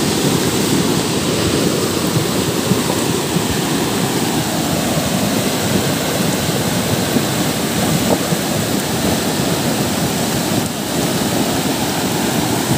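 Swollen floodwater rushing and churning in a steady loud roar, with heavy rain falling.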